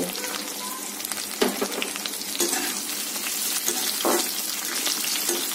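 Onions frying in hot oil in a metal kadai over a high gas flame, with a steady sizzle. A perforated metal spatula stirring them scrapes and knocks against the pan a few times.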